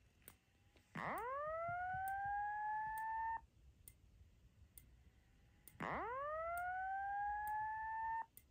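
Simplex 4903-9167 speaker strobe sounding the slow whoop alert tone of a fire-alarm voice evacuation signal. Two whoops sound, each a quickly rising then levelling sweep of about two and a half seconds that cuts off suddenly. Faint clicks come about once a second as the strobe flashes.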